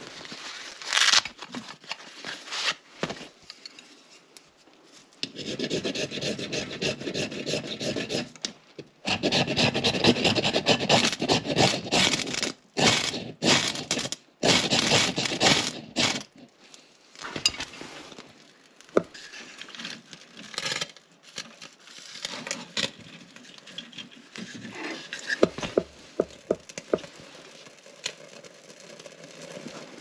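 A ferro rod is scraped hard with a striker in long rasping strokes, throwing sparks into tinder in a small wood stove. In the second half it gives way to scattered small clicks and crackles as the tinder catches.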